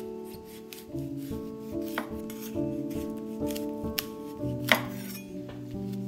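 Chef's knife cutting through broccoli stems on a wooden cutting board: a few sharp cuts and knocks about a second apart, the loudest about three-quarters of the way through, over soft background music with held notes.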